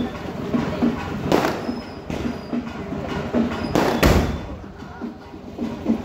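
Fireworks going off: sharp bangs about a second and a half in, a louder, deeper bang about four seconds in as a firework launches from the street in a spray of sparks, and another bang at the very end.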